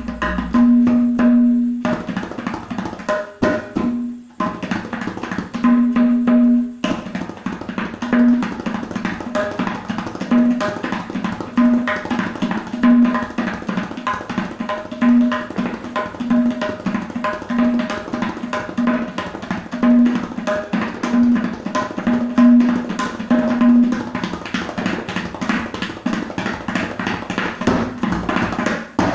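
Tabla played solo in a fast, dense run of strokes, the tuned treble drum ringing out again and again over the rhythm. The playing breaks off briefly a few times in the first seven seconds, then runs on without a break.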